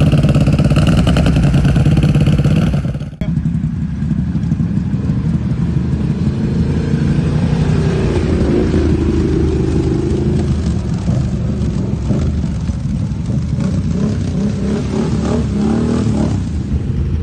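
ATV engines running and revving across a run of cut-together clips. The first is a steady, even engine note for about three seconds, then a sudden cut to engines working under throttle with rising and falling pitch.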